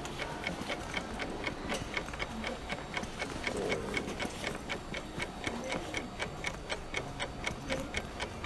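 Steady, even ticking, about four ticks a second, over a faint low murmur.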